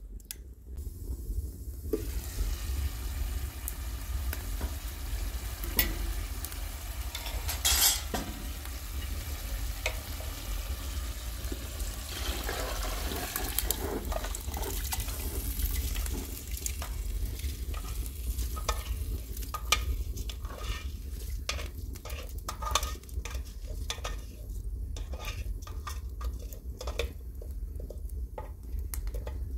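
A spoon stirring a tomato stew simmering in a pot over a wood fire, then scraping raw rice from a metal bowl into the sauce. Irregular clicks and taps run throughout over a steady hiss, and the clicks thin out near the end.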